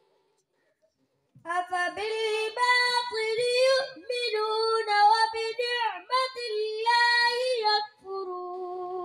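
A boy reciting the Quran in the melodic chanted style of tilawat, his high voice drawing out long notes that rise and fall in several phrases. The recitation begins about a second and a half in, after a short silence.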